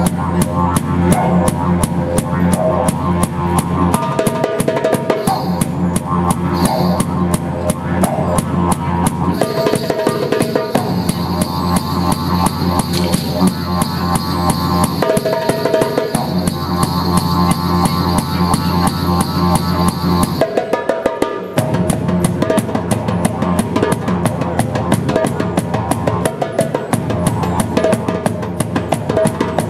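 Didgeridoo droning with a fast, busy rhythm on a darbuka goblet drum, played together by one busker. The drone breaks briefly every five or six seconds, with a longer gap a little past twenty seconds, while the hand drumming keeps going.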